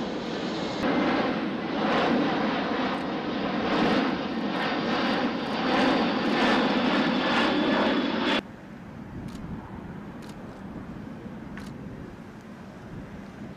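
Jet engines of a C-17 Globemaster III transport running with a steady, even roar. The roar cuts off abruptly about eight seconds in, leaving only quieter background noise with a few faint clicks.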